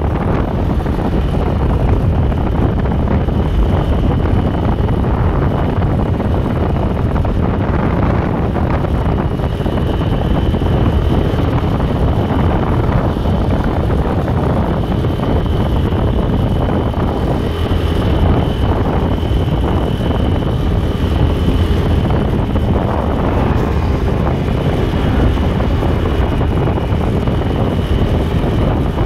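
Wind buffeting the microphone on a moving motorcycle, over steady engine and road noise, with a faint steady high tone running through it.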